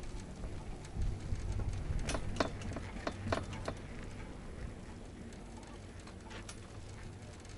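Pair chairlift's grip rolling over a tower's sheave train: a quick run of about six sharp clicks, about three a second, starting about two seconds in, with one more click later, over a low rumble of wind.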